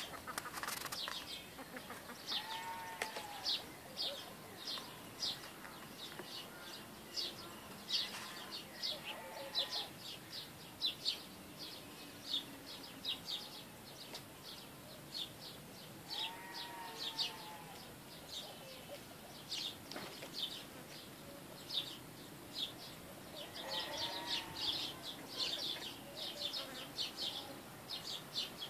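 Many small birds chirping continuously in quick, high notes. About four times a longer, arching call from a farm animal rises above them.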